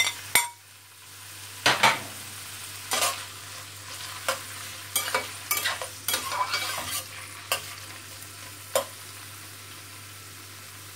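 Sliced chicken frankfurters sizzling in warm oil in a stainless steel pan, with sharp clinks and scrapes of a slotted turner against the pan as the pieces are pushed in and stirred. The clinks stop about nine seconds in, leaving only the steady sizzle.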